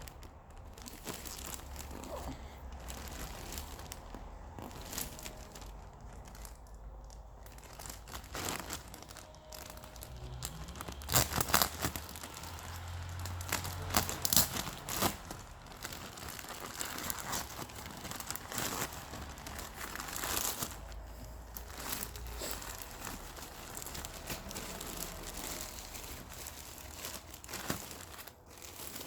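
Plastic packaging crinkling and rustling as it is handled and torn open, with a few louder, sharper crackles about halfway through.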